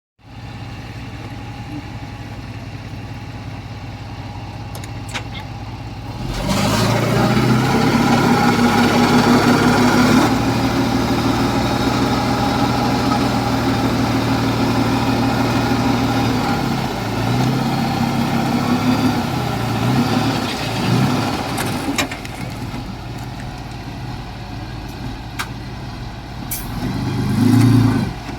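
Diesel engine of heavy earthmoving equipment running, stepping up to a loud, laboring pitch about six seconds in and staying there for about ten seconds, then wavering, settling lower, and surging briefly again near the end.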